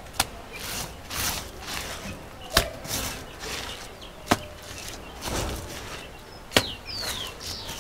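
Hands packing wet mud between adobe blocks: soft squelching and rustling, with four sharp slaps or knocks about two seconds apart.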